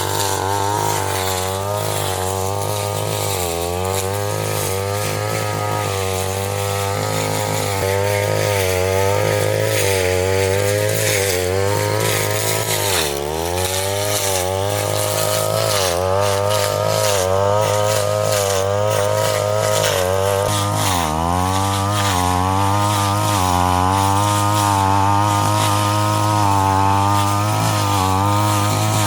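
Small petrol engine of a grass-cutting machine running continuously, its pitch wavering, and twice bogging down sharply before recovering.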